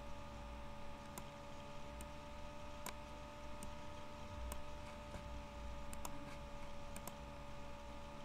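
Computer mouse clicking irregularly, about once a second, over a steady electrical hum and low room rumble.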